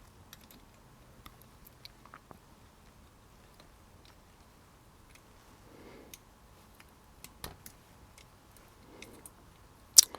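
Scattered small metallic clicks and ticks from the parts of a tubular door latch being handled and fitted back together, with one sharper click near the end.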